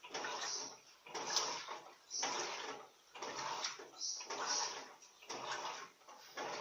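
Top-loading Turbo Economia 15 kg washing machine agitating a load of towels in rinse water. The water swishes in surges about once a second as the agitator turns back and forth.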